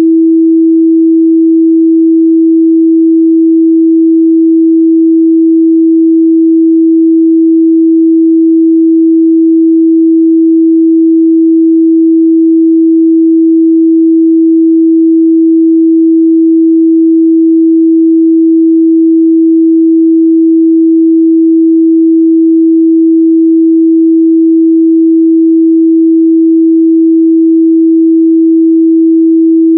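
Steady 326 Hz sine-wave test tone, a single pure pitch held at constant loudness without a break.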